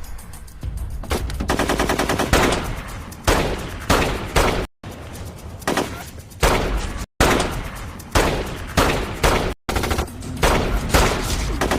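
Film soundtrack of a gunfight: rapid gunfire in repeated bursts, like automatic weapons, cut off abruptly about three times by edits.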